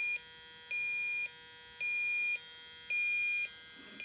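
Electronic refrigerant leak detector beeping: even, high-pitched beeps about half a second long, roughly once a second, four in all. Its beeping is the sign that it is sensing refrigerant.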